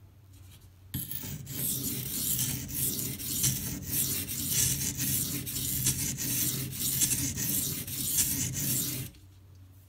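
K390 steel knife blade stroked back and forth on a soaked, coarse 240-grit silicon carbide water stone: a steady, gritty scraping of repeated strokes, grinding the edge to take out a small nick. It starts about a second in and stops near the end.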